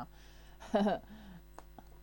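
Quiet room tone broken by one short vocal sound from a woman, under half a second long, about three-quarters of a second in, followed by a few faint clicks near the end.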